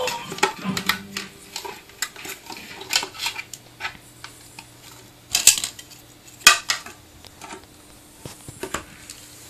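Hard objects being handled: irregular clicking and clattering, with two louder knocks about five and a half and six and a half seconds in.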